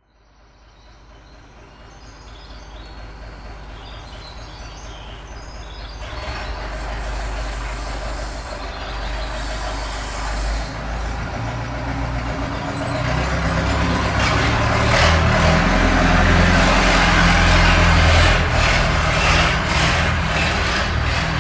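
Diesel truck engine approaching and passing, its rumble growing steadily louder and peaking in the last third. Birds chirp faintly in the first few seconds before the engine covers them.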